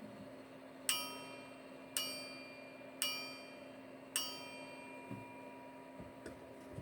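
Four struck, bell-like ringing notes about a second apart, each dying away, the last left ringing. Under them is a faint steady hum, and there are soft low knocks near the end.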